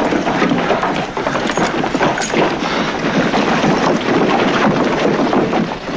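Several horses galloping: a dense, continuous clatter of hoofbeats.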